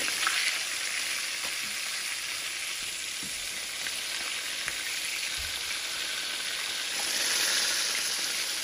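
Pieces of swai fish frying in avocado oil in a pan on the stove: a steady sizzle that swells louder for a moment near the end.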